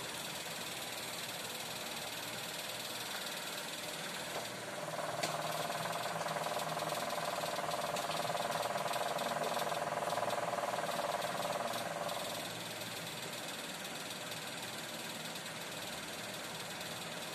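Steady hiss of the wok cooking on the stove. A louder motor drone swells in about five seconds in and fades out around twelve seconds.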